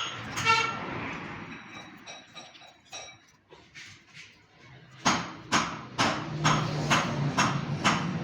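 Hammer blows on metal: a ringing strike near the start, a few lighter taps, then a steady run of blows about two a second in the last few seconds.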